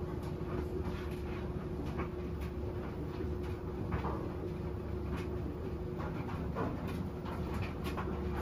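Washing machine running: a steady low hum with a faint steady tone, and irregular soft swishing noises over it.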